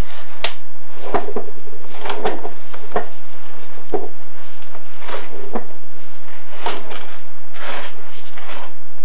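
Chimney inspection camera and its push rods scraping and knocking against creosote-crusted flue walls as they are fed through the flue, in irregular short scrapes about every half second to a second.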